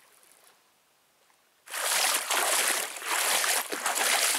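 Near silence, then, a little under two seconds in, a sudden start of loud, continuous splashing as feet wade and kick through shallow lake water.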